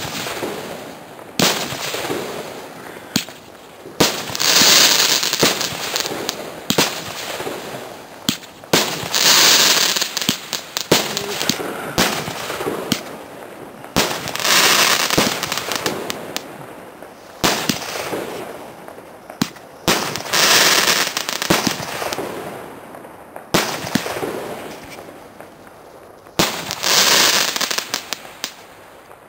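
A 15-shot roman candle barrage cake firing: a string of sharp bangs a second or two apart as the shots launch. About five longer spells of crackling come from the crackling stars bursting overhead, and the sound fades out near the end as the cake finishes.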